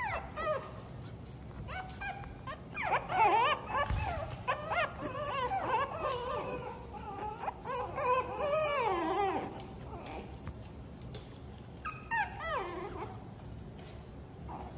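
Chihuahua-type puppies whining and whimpering in high, wavering cries. Several voices overlap in the middle, and a single falling whine comes near the end.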